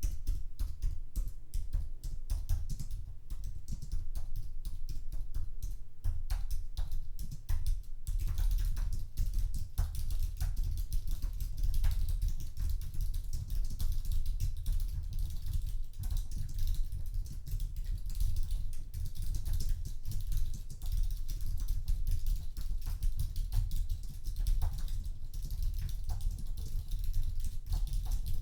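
Typing on an Apple keyboard: a fast, continuous patter of key clicks with dull low thuds of the keys bottoming out. It becomes denser and more continuous about eight seconds in.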